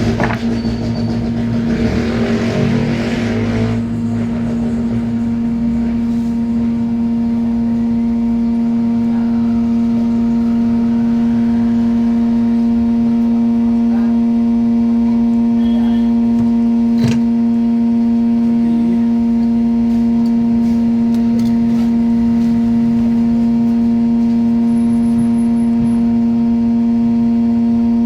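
Hot air rework gun's blower running with a loud, steady hum with overtones; a rush of air is heard over it for the first few seconds, then the hum carries on unchanged. A single sharp click about 17 seconds in.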